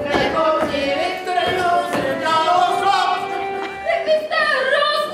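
Music with singing: a melody of held, changing notes, with a few sharp strikes.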